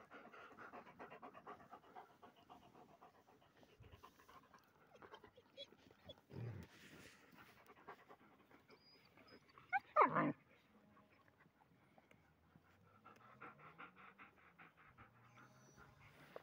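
A dog panting fast and rhythmically, close to the microphone, strongest at the start and again near the end. There is a low thump about six seconds in and a short, louder pitched sound about ten seconds in.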